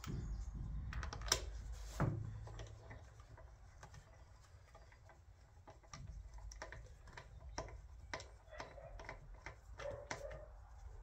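Light metallic clicks and taps as a wheel bolt is threaded in by hand on a car's rear wheel. Two louder knocks come about one and two seconds in.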